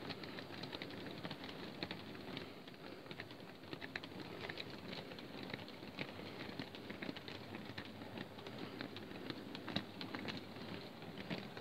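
Model railway wagons rolling along the track: a steady low rumble with a dense, irregular clatter of small wheel clicks on the rails.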